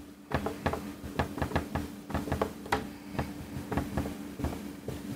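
Dry-erase marker writing on a whiteboard: a busy, irregular run of short taps and strokes as the letters go down. A steady low hum runs underneath.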